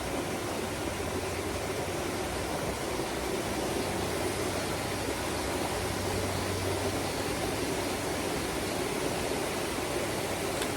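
Steady rush of water from a waterfall.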